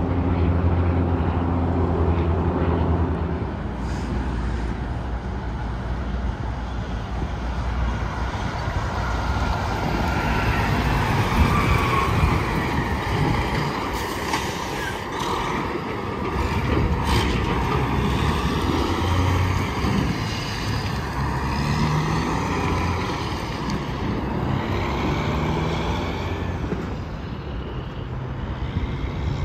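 Interstate highway traffic with tractor-trailers passing: engine drone and tyre noise that swell and fade as the trucks go by. A steady engine hum opens it, and a louder rush with tyre whine builds in the middle and dies away near the end.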